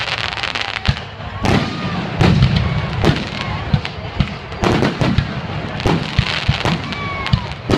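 Aerial fireworks display: shells launching and bursting, a continuous run of sharp bangs and deeper thuds, several close together at times.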